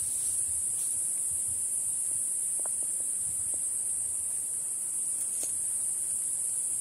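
A steady, high-pitched insect chorus drones on without a break, with a few faint ticks and a light rustle of leaves and handling.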